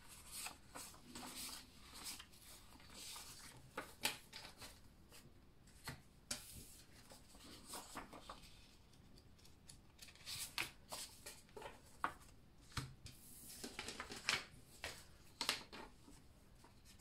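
Paper prop banknotes being counted by hand: soft rustling with irregular small flicks and snaps as single bills are peeled off a stack, a few louder than the rest.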